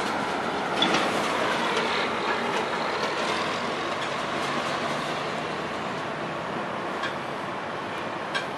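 Hi-rail vegetation spray truck running along the rails while it sprays: a steady rushing noise that eases off slightly, with a few faint clicks.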